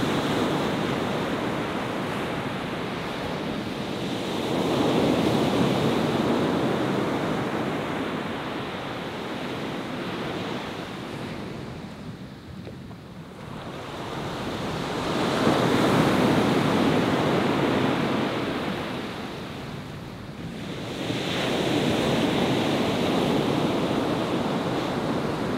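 Ocean surf breaking on a beach, swelling and fading in three long surges as waves roll in and draw back, with wind buffeting the microphone.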